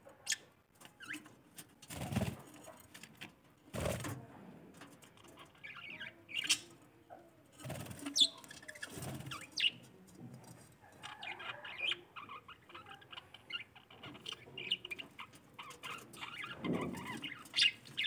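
Several budgerigars chirping and chattering, with short high chirps that thicken into a busy warbling chatter in the second half. Two soft thumps about two and four seconds in.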